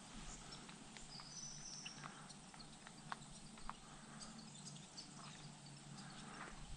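Faint outdoor quiet with scattered light clicks and rustles, and one short, high, steady bird note about a second in.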